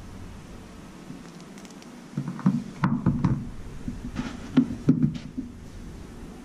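Light knocks and taps of fingers pressing and handling small adhesive patches on a car's sheet-metal roof channel, in two short clusters.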